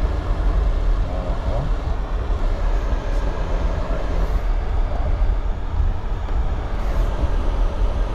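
Jeep Gladiator driving along a wet, muddy trail, heard from inside the cab: a steady low rumble of engine and tyres.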